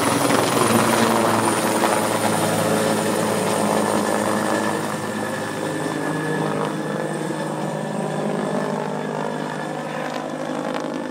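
Helicopter rotor and turbine noise, steady and slowly fading as the helicopter flies away, with a high thin whine that sinks slightly in pitch.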